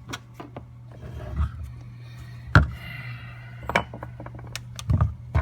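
Scattered clicks and clinks of a screwdriver and small metal carburetor parts being handled while the main jet is unscrewed, the sharpest knock about two and a half seconds in, over a steady low hum.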